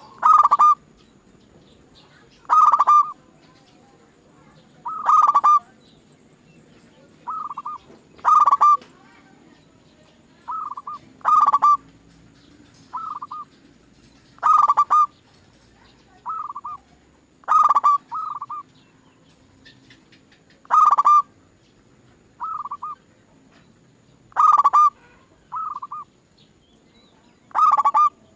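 Zebra doves (perkutut) cooing: short bursts of rapid coos, loud ones about every three seconds, with fainter bursts in between.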